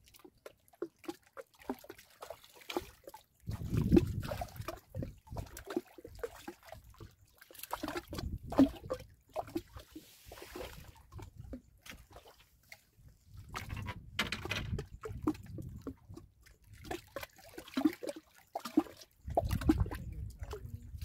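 Water sloshing and splashing at the side of a small fishing boat, with irregular small clicks and several dull low rumbles of handling, as a hooked piau is played and brought in.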